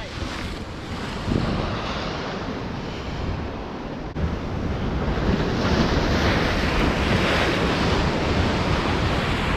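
Ocean surf washing against rocks, with wind buffeting the microphone; the wash swells louder in the second half.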